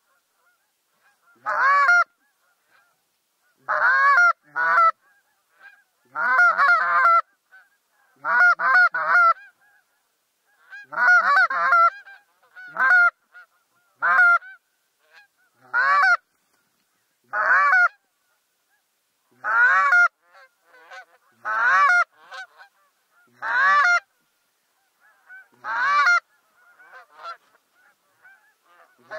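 Geese honking: short, loud honks, single or in quick pairs, about every two seconds, with silence between them.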